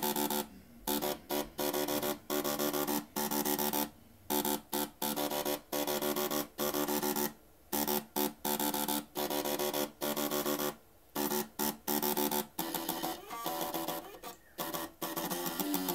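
Three 3.5-inch floppy drives' head stepper motors buzzing out a metal guitar riff in pitched notes, played as music by a microcontroller. The notes come in choppy staccato runs with short gaps between them.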